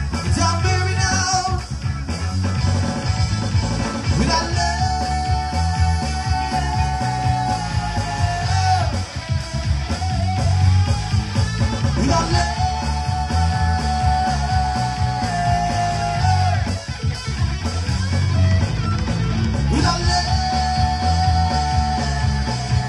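Live band playing an upbeat pop-rock groove with bass, drums and guitar. Over it, a melody line holds a long note three times, each lasting about four seconds.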